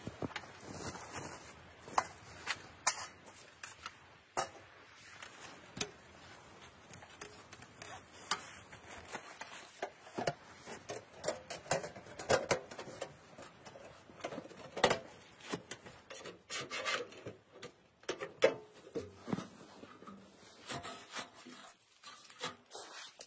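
Thin sheet-metal panels of a folding camp wood stove being unfolded and fitted together by hand: irregular metallic clicks and knocks, with stretches of metal scraping and rubbing against metal.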